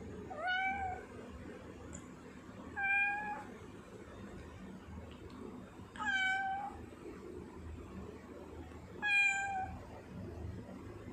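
Tortoiseshell cat meowing four times, each a short call about three seconds apart.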